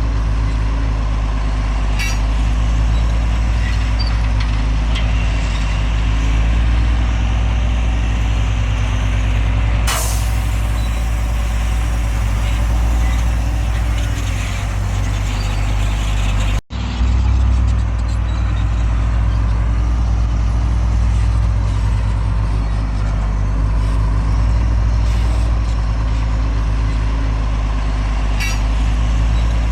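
Heavy diesel machinery engine running steadily, with a sharp burst of hiss about ten seconds in that trails off over a few seconds. The sound cuts out for an instant at an edit about two-thirds of the way through, then the engine carries on.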